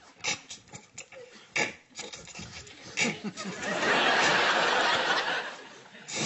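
Studio audience laughing, with a loud, steady hiss lasting about two seconds starting three and a half seconds in.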